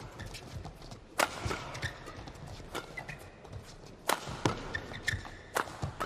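Badminton rackets striking the shuttlecock in a fast doubles rally: a sharp crack every second or so, with the loudest hit about four seconds in as a player jumps for an overhead smash.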